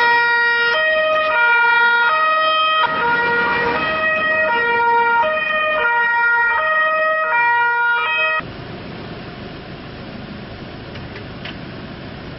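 Italian police car two-tone siren, alternating between a lower and a higher pitch roughly every 0.7 s. It cuts off abruptly about two-thirds of the way through, leaving a quieter steady rushing noise of engines and street.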